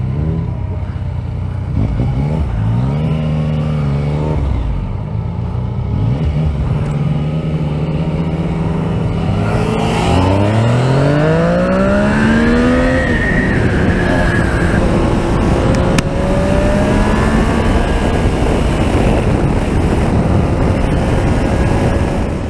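Yamaha MT sport motorcycle engine accelerating through the gears, its note rising in pulls with drops at each shift. The longest, hardest pull comes about ten seconds in, and then it settles to a steadier cruise. Wind rushes over the microphone throughout.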